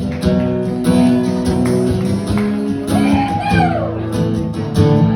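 Acoustic guitar strumming the chords of a country song's intro, steady and even.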